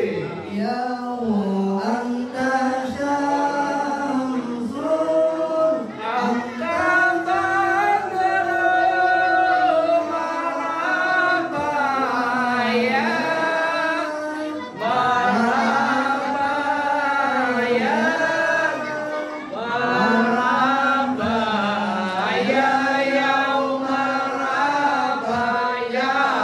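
A group of men chanting a devotional Islamic song together, unaccompanied, in long drawn-out melodic phrases with brief pauses for breath.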